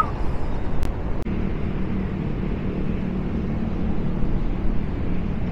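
Gusty wind rumbling on the microphone. From a little over a second in there is also a low, steady hum.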